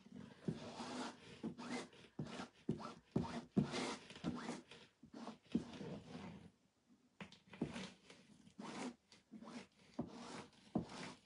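Plastic squeegee scraping chalk paste across a silkscreen stencil on a burlap board, in short back-and-forth strokes about two a second, with a pause of about a second a little past halfway.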